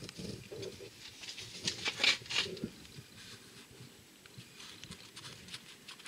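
Faint, irregular rustling and small clicks of fingers handling parts on a diesel injection pump, loudest about two seconds in.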